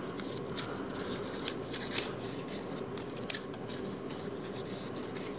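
Small folded paper note crinkling and rustling as fingers unfold it, with scattered light ticks and crackles.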